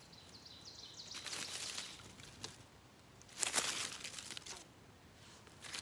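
Freshly lit tinder bundle being tended by hand, giving two short bursts of rustling, crackling noise, the second the louder.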